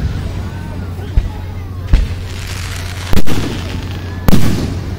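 Aerial fireworks shells bursting overhead: a small pop about a second in, a sharper bang near two seconds, then two loud booms in the second half, each one trailing off.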